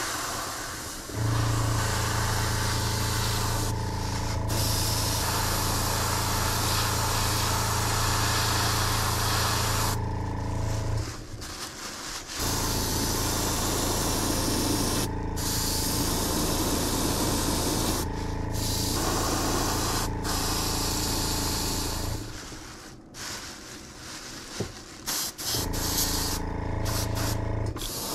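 Airbrush spraying paint in hisses of several seconds, with short breaks as the trigger is let off, over the steady hum of the small air compressor feeding it. The hum and hiss drop out twice for a second or two, about a third of the way in and again after about two-thirds.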